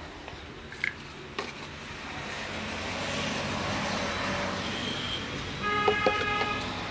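Road traffic passing outside, its noise swelling for a few seconds as a vehicle goes by, with a couple of light clicks early on. Near the end a vehicle horn sounds, held steady.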